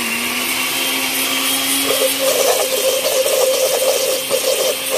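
Countertop blender running at speed, pureeing cooked carrots with ginger and miso into a thick puree. The motor runs steadily, and from about two seconds in a rough, uneven churning rattle joins it as the thick mix tumbles in the jar.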